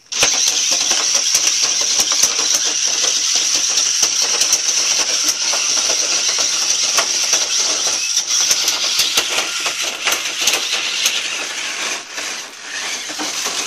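Small electric drive motors of an FLX micro drive RC car whining at a steady high pitch, with frequent clicking and knocking as the car runs around in a plastic Beyblade arena.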